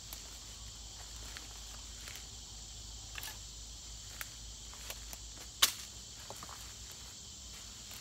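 Steady insect chorus, an even high buzz, with scattered light clicks and rustles and one sharper click a little past halfway.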